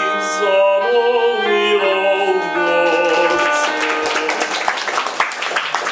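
Czech bagpipes (dudy) playing a folk tune over a steady drone, with a man singing along. The tune ends about three and a half seconds in and the audience claps.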